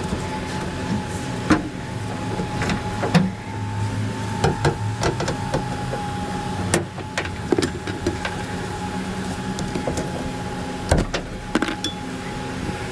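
Scattered clicks and knocks of a metal pry tool and hands working at plastic trim along the windshield edge, over a steady background hum with a faint high tone.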